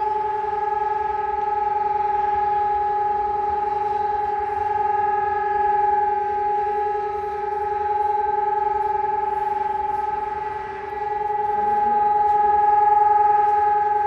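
SiRcom ESp 750 Maestro electronic siren and a DS 977 motor siren sounding the steady continuous tone of the Czech siren test. The pitch holds level while the loudness slowly swells and fades, dipping briefly about eleven seconds in.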